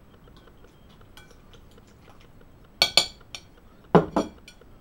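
Glass mixing bowl clinking and knocking: two sharp clinks about three seconds in and a lighter one just after, then two heavier knocks about a second later.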